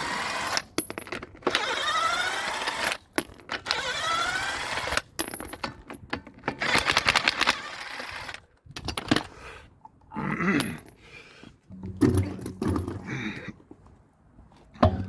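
Power impact wrench undoing the wheel bolts in several bursts of about a second, each with a rising whine, followed by scattered metallic clinks and knocks.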